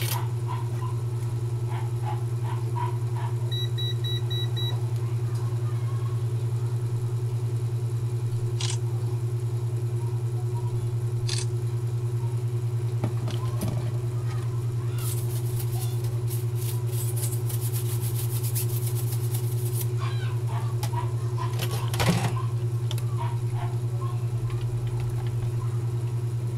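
Steady low background hum under small clicks and taps of screwdriver work on a laptop. A short electronic beep comes about four seconds in, a run of rapid clicking lasts several seconds past the middle, and a single knock comes near the end.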